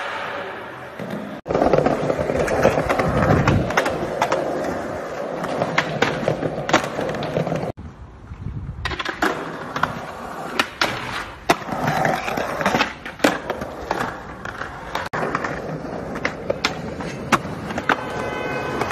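Skateboard wheels rolling on concrete, broken by sharp snaps of the tail popping and the deck and trucks slapping down on landings during flip tricks.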